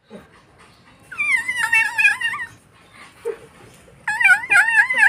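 Dog whining in high, wavering, sing-song cries, in two bouts of about a second and a half each: one about a second in, one near the end.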